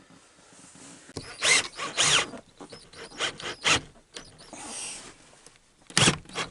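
A screw being tightened with a hand tool fitted with a torx bit to secure an earth connection to the van body: a run of short, irregular scraping and rubbing bursts, the loudest two about a second and a half and two seconds in.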